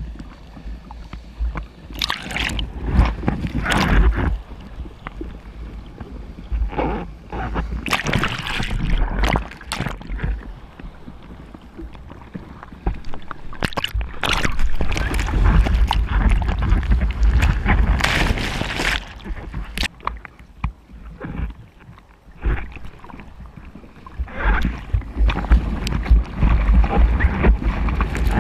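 Sea water sloshing and splashing around a camera at the surface in breaking surf, coming in irregular noisy surges a few seconds apart. Near the end, whitewater washes over the camera.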